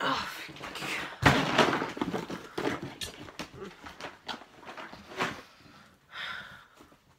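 Knocks, rustling and clicks of things being handled and moved, with one loud thud about a second in.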